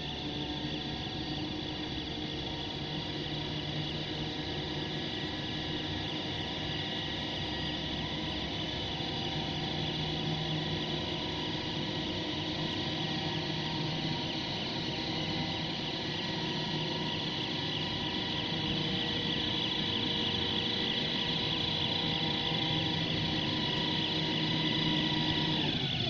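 Steady electric machine hum with a high whine made of several steady tones, growing slowly louder.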